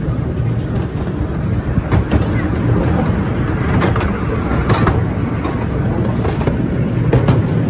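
A narrow gauge passenger train running along the track: a steady low rumble of the carriages, with a few sharp clicks at uneven intervals from the wheels over the rail joints.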